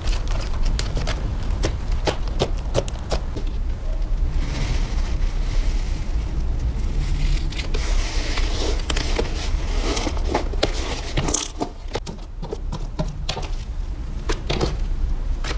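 Slime being squeezed and poked by hand, giving a string of sharp crackling clicks and pops, with a softer hissing squish from about four to nine seconds in.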